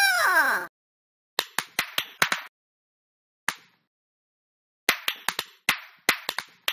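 A short cry that rises briefly and then falls away, followed by a series of sharp slap-like smacks in irregular clusters: about six in quick succession, one alone, then another quick run.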